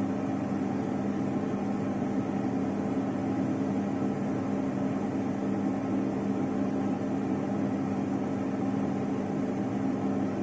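Hot-air rework station blowing steadily: an even hiss of air over a low motor hum, while it heats a thick circuit board.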